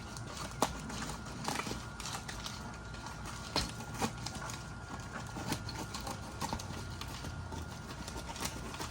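Irregular light clicks and knocks of small hard pieces being handled and rummaged through inside a box.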